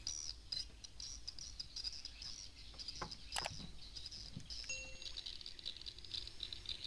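Night insects chirping in a high, rapidly pulsing chorus. Two sharp clicks come a little after three seconds in, and a short beep near five seconds.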